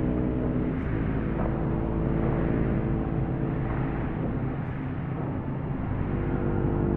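Dark ambient drone: a steady low rumble with sustained low tones layered over it. The tones thin out about a second in and swell back near the end.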